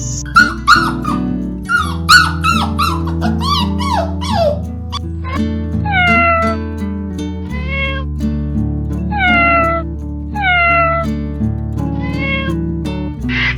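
A cat meowing over and over, with a quick run of short falling mews and then about five longer meows that drop in pitch, over background music.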